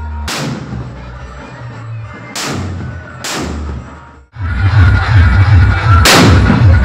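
Firecrackers going off: four sharp bangs, the loudest about six seconds in, over loud music with a heavy bass beat.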